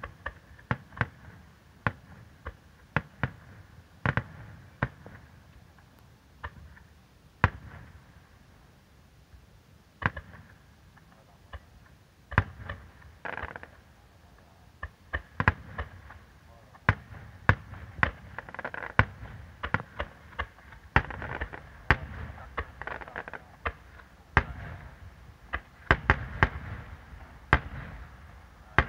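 Aerial fireworks shells bursting: a long, irregular run of sharp bangs, coming thicker and faster in the second half.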